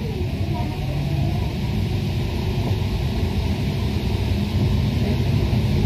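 Rubber-tyred Paris Métro Line 1 train running through a tunnel: a steady low rumble that grows slightly louder towards the end.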